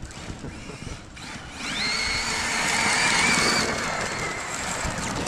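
Brushless electric RC truck at speed: a high motor and drivetrain whine rises about a second and a half in, holds, then fades away near the end, over a hiss of tyres on loose dirt.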